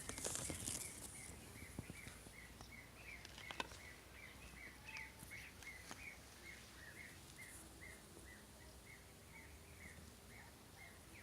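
Faint, steady repeated chirping, about three short, evenly spaced chirps a second, typical of a small bird calling, with a few soft clicks in the first few seconds.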